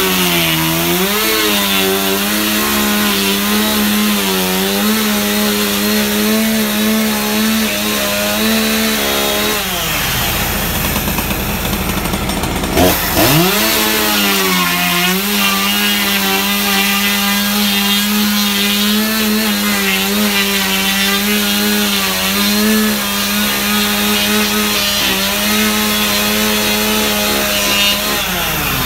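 Two-stroke chainsaw fitted with a debarker head running at full throttle as it strips bark from a log. About nine seconds in the throttle is released and the engine falls back for a few seconds, then it revs up again and holds steady, easing off just before the end.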